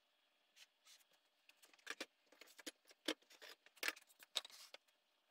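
Thin wooden segments clicking and tapping on a wooden workbench as they are picked up, shifted and set down. Faint, with a scattered run of light knocks in the middle, the sharpest four about a second apart.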